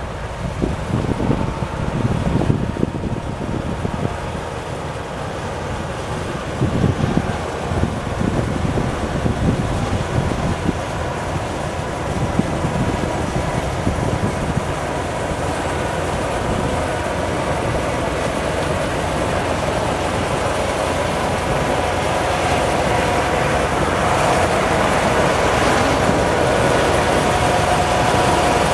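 Diesel engine of a motor grader with a front snow plough, running as it clears snow from the road and growing steadily louder as it approaches. A car drives past near the start, and a steady whine from the grader grows clearer near the end.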